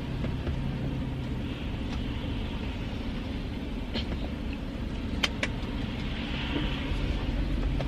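A person eating buffalo wings: a few faint clicks of chewing and handling food over a steady low hum.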